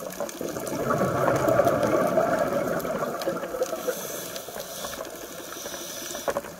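A scuba diver's exhaled bubbles gurgling and crackling underwater: a bubbling gush swells about a second in and slowly fades, with a short click near the end.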